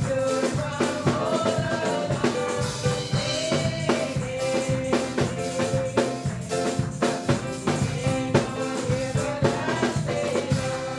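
Church worship music: a steady drum beat with tambourine under a melody line.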